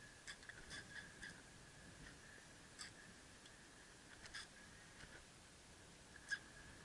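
Near silence, with a faint steady high hum and a handful of faint, irregular clicks; the strongest click is near the end.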